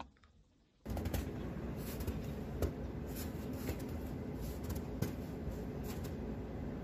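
A mouse click, then about a second in a phone recording of footsteps in snow cuts in: crunching steps over a steady rushing noise, with a few sharper clicks scattered through it.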